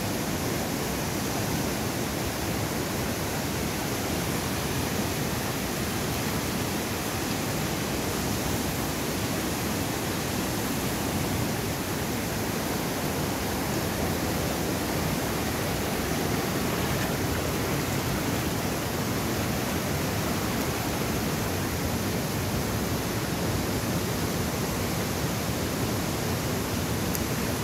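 Steady, unbroken rush of a fast-flowing river.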